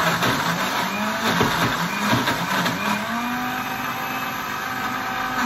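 Electric countertop blender running, churning a thick creamy sauce; the motor's pitch wavers up and down under the load, then settles slightly higher about three seconds in.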